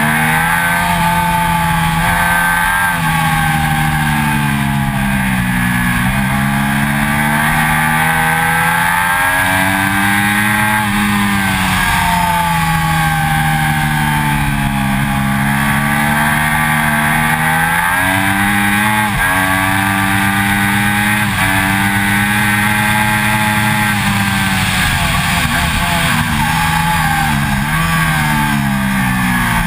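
Triumph Daytona 675's inline three-cylinder engine at racing speed: the note climbs with each pull, drops sharply at every upshift, and sweeps down through downshifts into the corners, over a steady rush of wind and road noise.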